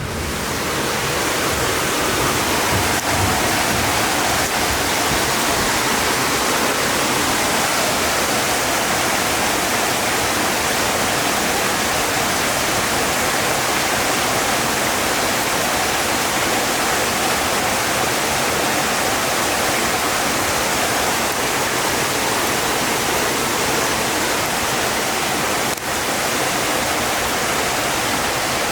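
Floodwater rushing down a flooded street in the rain, a loud, steady wash of moving water.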